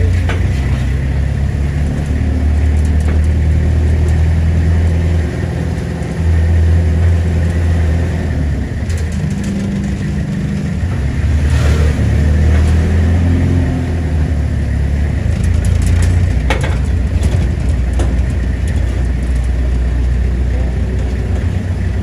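Motor vehicle engine running, its low drone changing every few seconds as it speeds up and slows down, with road noise.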